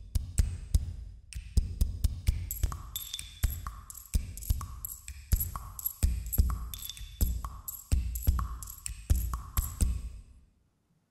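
Channel intro music: a beat of sharp hits over deep bass with short high notes, stopping near the end.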